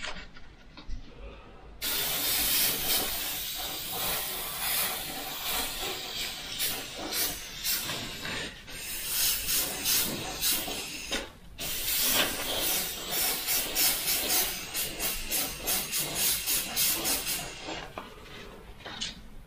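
Mr Hobby airbrush spraying white solvent paint: a hiss of air and paint in many short pulses as the trigger is worked. It starts about two seconds in, pauses briefly near the middle and stops shortly before the end.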